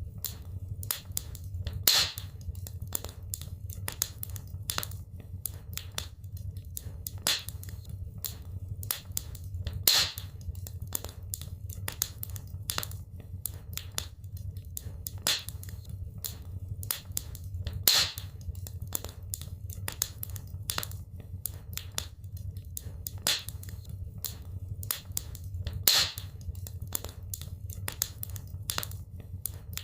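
Wood fire crackling in a fireplace: a dense stream of sharp crackles over a low steady rumble, with a louder pop about every eight seconds.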